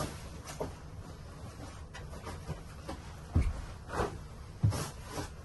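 Bed linen rustling as a bed is made, with three louder soft thumps in the second half as a sheet is flung out and flaps down over the mattress.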